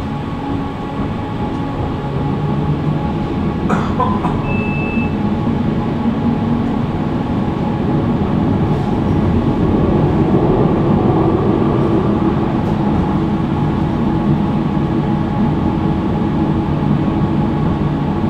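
Tram running along the rails, heard from inside the car: a steady rumble with a few held tones, growing louder about halfway in. A single click about four seconds in, followed at once by a short high beep.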